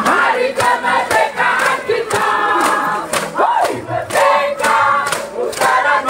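A mixed group of men and women chanting and singing a team cheer (yel-yel) in unison to an acoustic guitar. Sharp beats from plastic-bottle shakers keep time about twice a second.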